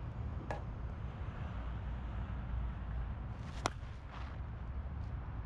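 Slow-pitch softball bat striking the ball: one sharp, loud crack about three and a half seconds in, with a fainter click about half a second in, over a steady low outdoor rumble.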